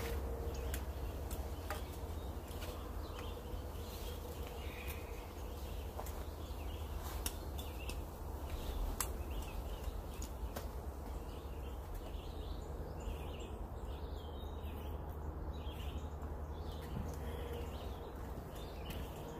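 Outdoor woodland ambience: birds calling off and on over a steady low rumble, with scattered faint clicks.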